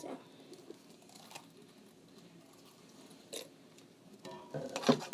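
A few faint scattered taps and clicks, then a spoon starts clinking and scraping around a bowl near the end, stirring the glue slime mixture.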